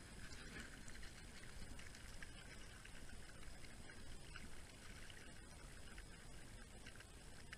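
Faint water splashing at the surface of a small stream as a spinning rod and reel are worked, with a few small ticks over a low, even rumble.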